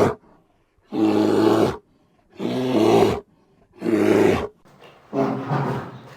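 Bear roaring: four short roars, each under a second and about a second and a half apart, the last one trailing off.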